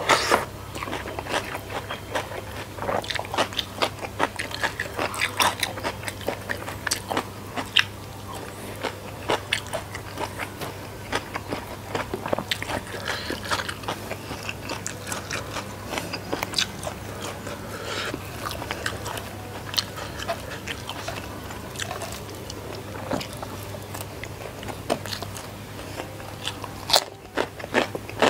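Close-miked chewing of food with many sharp, crisp crunches: a mouthful of raw cucumber, then rice with papaya-leaf urap. A low steady hum runs underneath.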